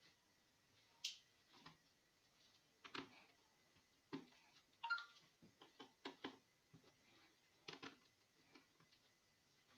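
Faint, irregular clicks and light taps, about a dozen, the loudest around five seconds in, over quiet room tone.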